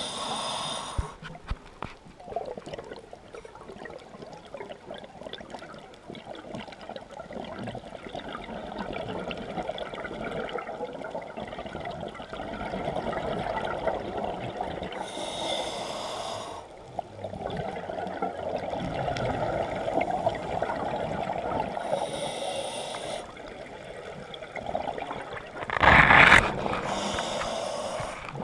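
Scuba diver breathing through a regulator underwater: a steady low rush of drawn air, broken every several seconds by a burst of exhaled bubbles, four in all, the loudest about 26 seconds in.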